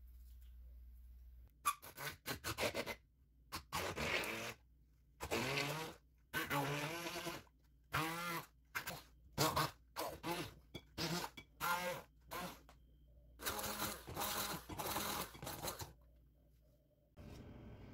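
Hand-held immersion blender pureeing fresh strawberries, run in about a dozen short on-off bursts. Its motor pitch rises and falls with the load as it chops the fruit, then it stops about two seconds before the end.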